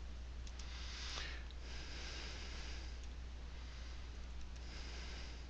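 Steady low hum and hiss of a desktop microphone, with a few soft breaths and faint, sparse computer-keyboard clicks.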